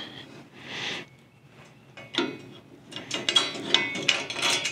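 Bolt hardware clicking and rattling against a steel tractor brush guard side mount as the washer, spacer and nut are fitted by hand: a run of small metallic clicks that starts about two seconds in and gets busier toward the end.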